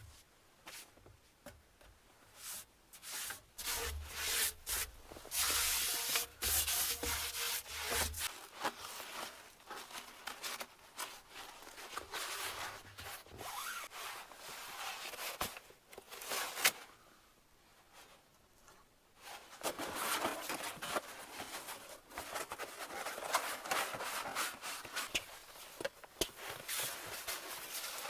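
Irregular scraping and rubbing strokes, with a couple of short pauses.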